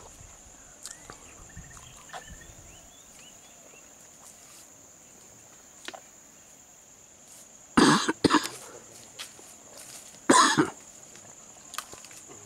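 A person coughing: two coughs close together, then a third about two seconds later. A steady high insect drone runs underneath.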